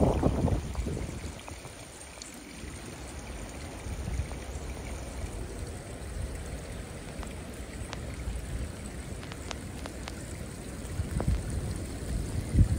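Rainwater runoff from a saturated field pouring down a bank into a muddy pond, a steady rushing splash. Low wind rumble on the microphone in the first second and again near the end.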